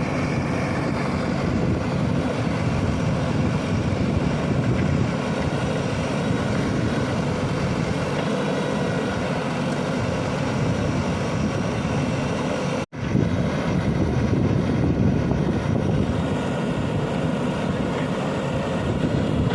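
JCB backhoe loader's diesel engine running steadily. The sound cuts out for a split second about thirteen seconds in.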